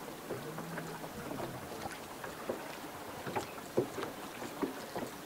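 Water lapping and slapping against the hull of a small fishing boat, heard as irregular light taps and splashes, with a faint low engine hum from another boat briefly near the start.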